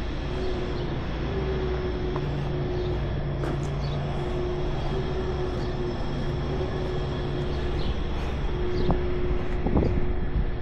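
International 4300 medium-duty box truck's diesel engine idling: a steady low drone with a constant hum, swelling briefly near the end.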